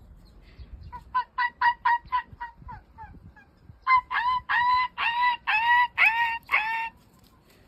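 An animal calling in a series of short cries: a quick run of about eight short notes, then about six longer, louder cries, each dropping in pitch.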